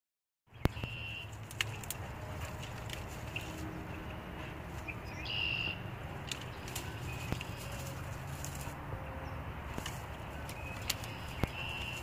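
A vizsla dog working its way through a pile of dry sticks and brush, with scattered sharp twig cracks and snaps over a steady low rumble. A short high chirp comes three times: about a second in, near the middle and near the end.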